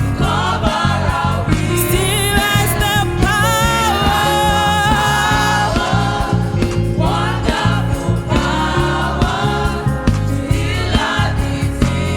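Youth gospel choir singing with band accompaniment, voices held in long vibrato notes over a steady bass and drum beat.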